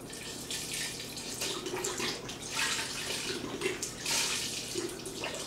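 Chicken stock pouring from a carton into a pressure cooker's stainless steel pot, a steady splashing stream that swells and eases.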